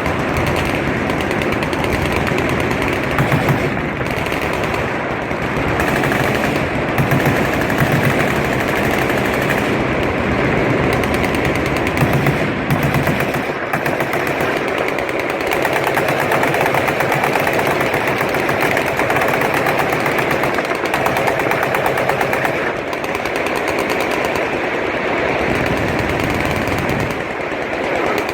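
Machine guns firing on a shooting range: a continuous, overlapping clatter of automatic fire from several guns at once, with no break.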